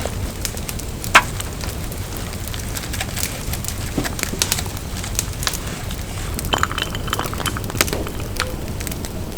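Wood campfire crackling: irregular sharp pops and snaps, one louder pop about a second in, over a steady low rumble.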